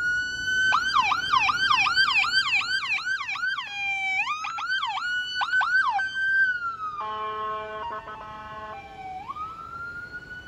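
Police vehicle's electronic siren: a rising wail held high, then a fast yelp of about three to four sweeps a second, a short dip, and more yelp. About two thirds of the way in it switches to a steady buzzing horn tone for a couple of seconds, then winds back up into a rising wail, a little fainter near the end.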